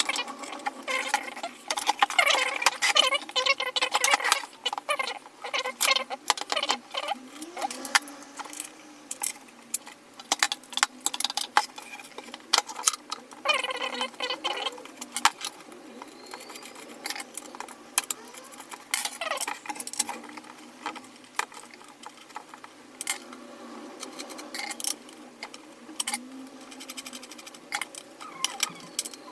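Skateboard hardware being worked with a screwdriver: irregular small metal clicks and ticks, with bouts of scraping and a few short squeaks as the mounting bolts and nuts are handled and turned.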